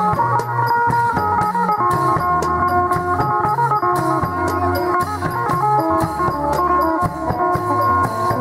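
Isaan procession band music: drums and small hand cymbals keep a fast, steady beat, about four strikes a second, under a melody of held notes.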